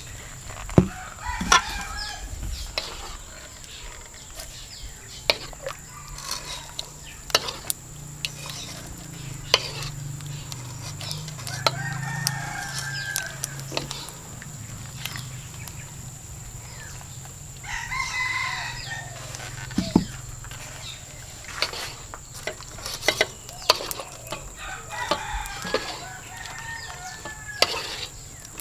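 Domestic fowl calling about four times, each call drawn out for a second or two, with scattered clinks and knocks of dishes and utensils.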